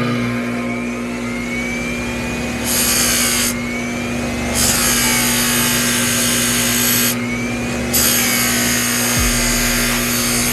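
Small electric power tool running steadily with a constant hum, while a spinning metal shaft is polished against an abrasive in three rasping stretches of one to three seconds each.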